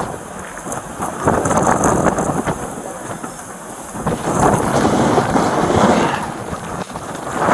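Strong wind buffeting a police body-camera microphone in a snow squall, rumbling in gusts that swell twice.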